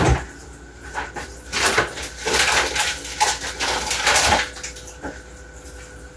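Kitchen things being handled: a sharp knock at the start, then scattered clicks and a few seconds of rustling and clattering that die down about four and a half seconds in.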